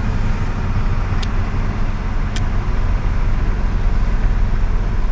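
Recovery truck's engine running and road noise, heard from inside the cab while driving: a steady low rumble with two faint ticks.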